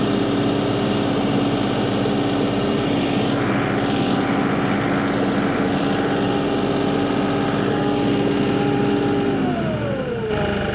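Kioti DK6010 SE diesel tractor engine running steadily as the tractor drives across a dirt yard; about nine and a half seconds in the engine slows and its pitch drops sharply.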